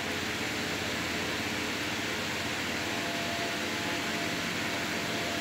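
Steady whirring hum of a fan-driven appliance, with faint steady tones beneath it.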